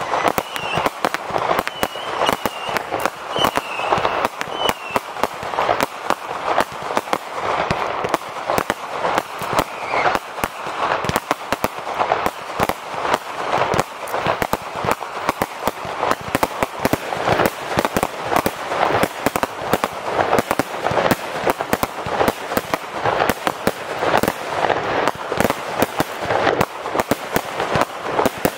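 Fireworks display: a rapid, unbroken barrage of bangs and crackles from aerial bursts and ground-fired tubes.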